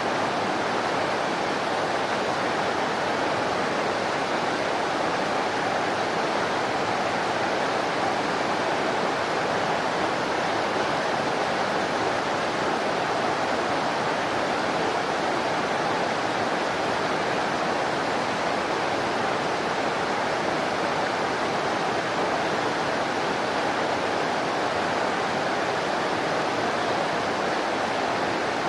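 Steady rush of whitewater in a fast-flowing river, an even unbroken hiss.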